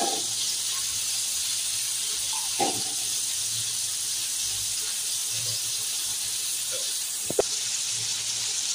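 Chicken pieces and chopped tomato sizzling in a wok, a steady hiss, with a light knock about two and a half seconds in and a sharp click near the end.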